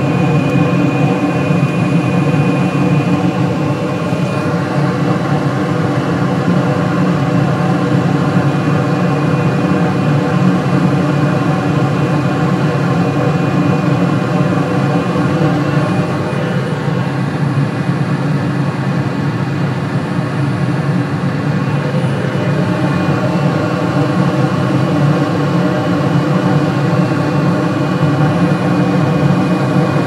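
Trane commercial rooftop HVAC unit running in heating mode, its blowers and gas burners firing: a loud, steady mechanical hum.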